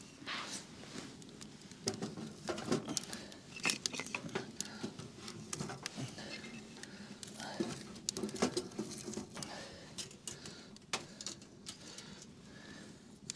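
Wood fire crackling inside a titanium tent stove, with scattered sharp clicks and metallic knocks as the stove's thin metal door is handled, swung shut and latched.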